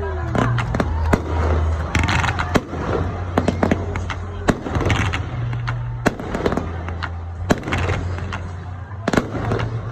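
Aerial fireworks display: a rapid, irregular string of sharp bangs and crackling pops, some coming in quick clusters, over a steady low rumble.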